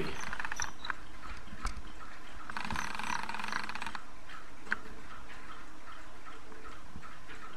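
Plastic gear train of a VEX Robotics Gear Racer rubber-band car clicking in quick rattling runs as the car is wound up by hand, the longest run about three seconds in. A faint regular ticking, about three a second, goes on underneath.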